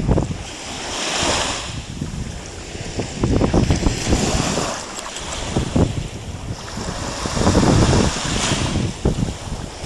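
Wind gusting and buffeting the microphone over the wash of shallow sea water, with dogs wading and sloshing through it; the gusts come and go in surges.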